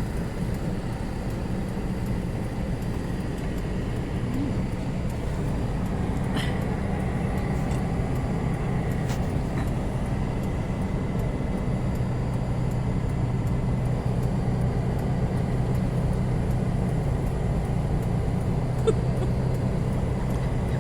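Car engine running with a steady low rumble, heard from inside the cabin.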